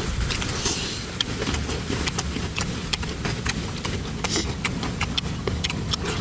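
Eating at close range: many small sharp clicks and crunches of food being chewed and handled, over a steady low rumble.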